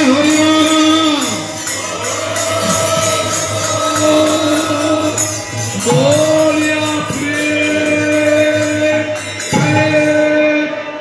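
Kirtan: voices singing a devotional chant in long held, gliding notes, backed by harmonium and khol drums, with kartal hand cymbals clashing in a fast steady rhythm that drops away near the end.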